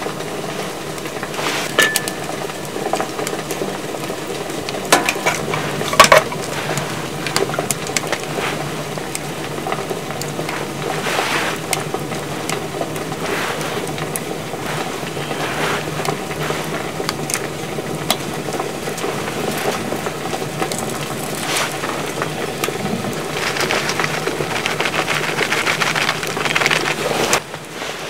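Food-prep handling sounds: soft knocks and clicks as slices of ham and fillings are laid into a cast-iron hot sandwich maker, with one sharper knock about six seconds in. Under them runs a steady crackling hiss from the burning wood stove, and near the end there is a denser rustle as shredded cheese is scattered over the top.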